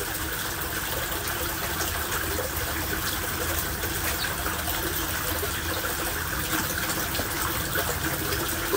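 Steady rushing, water-like noise with a faint underlying hum, even throughout with no distinct knocks or clicks.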